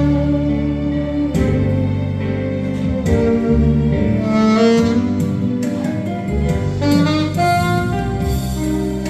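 Saxophone playing a melody of held notes over accompanying music with a bass line and a beat.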